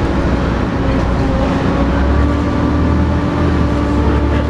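Volvo B7TL double-decker bus running under load, the engine's low rumble overlaid with a steady whine: the 'hoover' sound this bus is known for.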